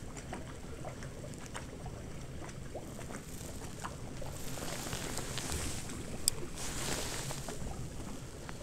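Footsteps crunching in snow, about one step a second, with small ticks and crackles. A single sharp click about six seconds in.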